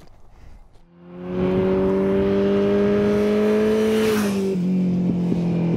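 Motor vehicle engine pulling hard and speeding up, its note climbing slowly. About four seconds in the pitch drops and then holds steady.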